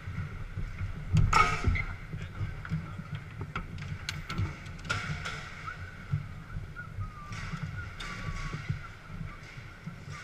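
Garlando foosball table in play: the ball and the rods clack and knock against the table in irregular sharp strikes, with a louder burst about a second in.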